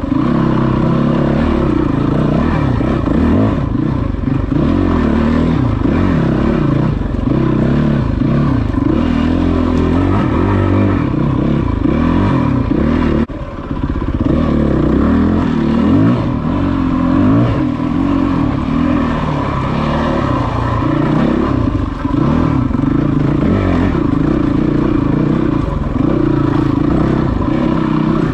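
Yamaha WR450F's single-cylinder four-stroke engine running under a riding load, its pitch rising and falling as the throttle is opened and closed over rough trail. The sound dips briefly about halfway.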